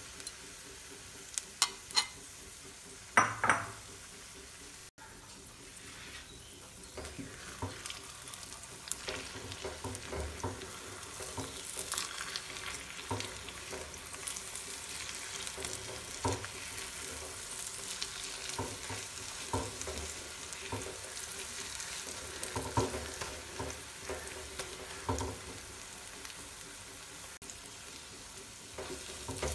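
Egg and chopped vegetables sizzling in hot oil in a frying pan, with a few sharp clinks of a utensil against the pan in the first few seconds. From about six seconds in, a wooden spatula scrapes and stirs through the setting egg in irregular strokes over the continuous sizzle.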